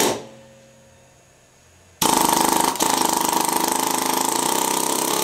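Short-stroke pneumatic air hammer run in the hand with its air restricted right down, the setting used for sizing guide liners with a ball broach. After a brief blip of the tool right at the start, it runs steadily from about two seconds in as a fast, even hammering with a strong hum, for about three and a half seconds.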